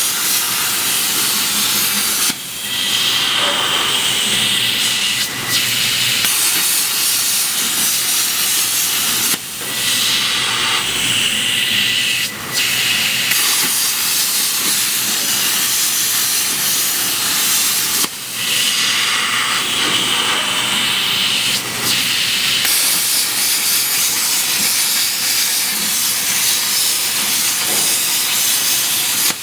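CNC plasma cutter torch hissing steadily as it cuts, a loud high-pitched hiss that briefly drops out about six times.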